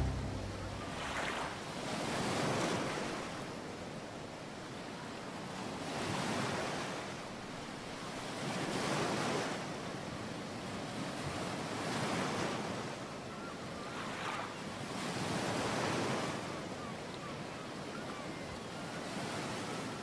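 Surf washing onto a pebbly beach, each wave swelling and falling away every few seconds.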